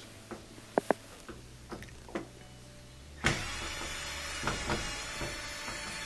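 Cordless drill-driver spinning out a Phillips screw, starting abruptly about halfway through and running steadily for nearly three seconds, after a few light clicks.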